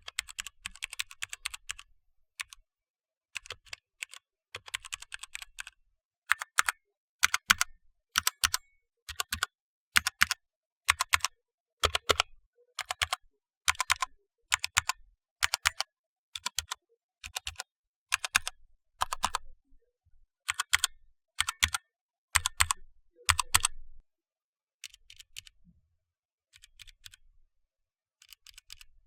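Mechanical keyboard with Outemu Brown tactile switches being typed on: a quick run of keystrokes, then single keys pressed and released one after another about one and a half times a second, clicking and clacking, and fainter keystrokes near the end.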